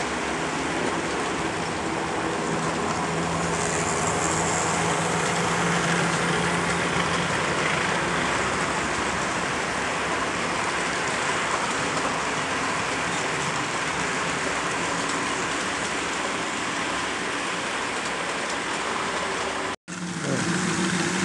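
HO-scale model train running on the layout track: a steady rolling whir with a faint motor hum, broken by a sudden dropout near the end.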